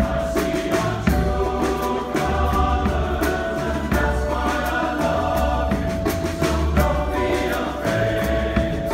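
Male choir singing sustained harmonies, backed by a live band with upright bass, drum kit and light percussion.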